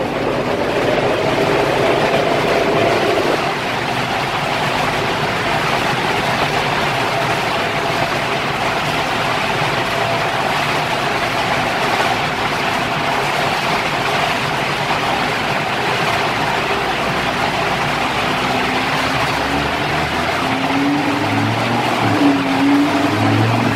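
Audi R8 V10 Plus on a chassis dynamometer: a steady, loud rushing noise of the running dyno setup, with an engine tone fading out over the first few seconds and a few low throbs near the end.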